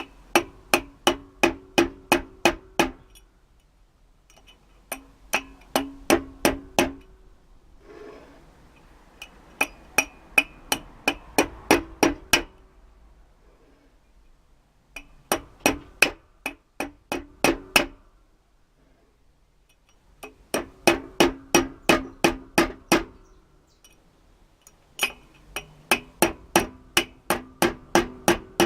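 Rounds of hammer blows on steel, driving a new rear wheel bearing into a cast-iron brake drum with the old bearing held against it as a drift. The hits come about three a second in six runs of eight to twelve, with short pauses between, and each hit leaves the drum ringing.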